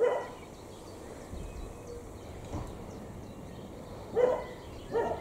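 A dog barking: three short single barks, one right at the start and two close together near the end.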